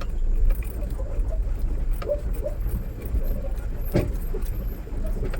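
Mahindra Bolero pickup's diesel engine running at low speed over a rough track, heard from inside the cab as a steady low rumble with light rattles and clicks from the body and loose items, and a sharper knock about four seconds in.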